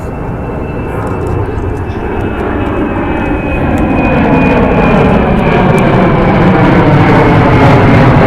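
Jet airliner's engines growing steadily louder, a broad rumble with a thin high whine that slides slowly down in pitch.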